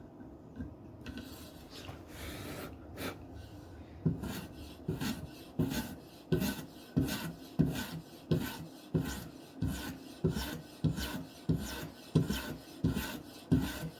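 Steel knife blade stroked over a radiused polymer strop charged with 80-micron diamond emulsion, a rasping rub used to grind a new bevel. Slow, light rubbing at first, then steady strokes about one and a half a second from about four seconds in.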